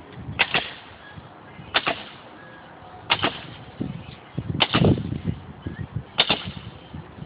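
Nails being driven into siding: five sharp shots, each about a second and a half after the last, over a low background rumble.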